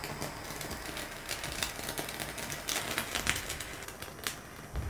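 Handheld butane kitchen torch hissing steadily as its flame sears thin slices of marbled wagyu beef, with the fat crackling and spitting in quick, irregular pops, most densely in the middle. The crackling is the fat melting almost instantly under the flame.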